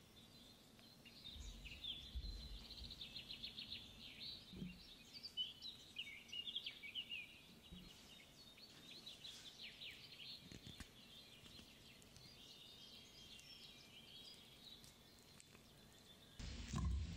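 Faint birdsong: quick high chirps and trills in bursts over the first ten seconds or so, with a few soft low knocks. Near the end a louder, fuller noise starts abruptly.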